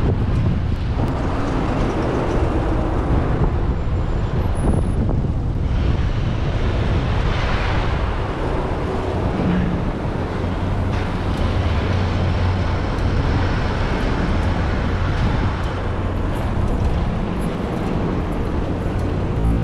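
City street traffic with wind rushing over the microphone of a camera riding along on a moving bicycle: a steady, unbroken noise with a strong low rumble.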